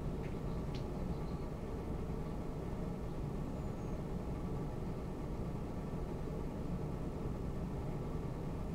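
A steady low rumble with a faint hum running under it, and a couple of faint, short high chirps in the first second.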